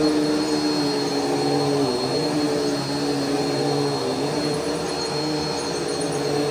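Bissell PowerForce Helix Turbo bagless upright vacuum cleaner running on carpet: a steady motor hum with a faint high whine, its pitch dipping slightly about two and four seconds in.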